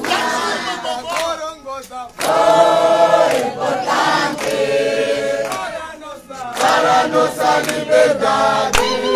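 A crowd singing and chanting together in loud phrases with short breaks, with a few sharp clicks mixed in.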